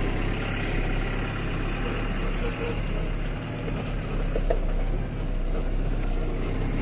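Truck's diesel engine running steadily at low speed, heard from inside the cab as the truck pulls in to park.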